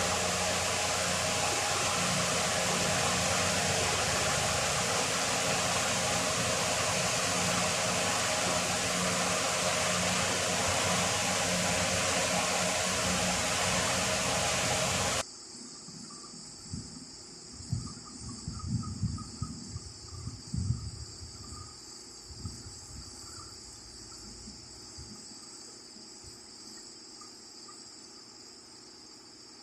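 Steady, loud machine running noise that cuts off abruptly about halfway through. After it come quieter crickets chirping steadily, with a few low knocks soon after the cut.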